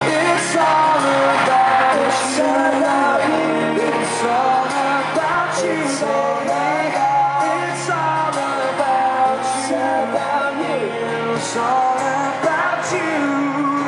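A live pop-rock band playing the start of a song in an arena: acoustic and electric guitars with singing over the amplified music and regular high cymbal-like crashes, recorded from within the audience.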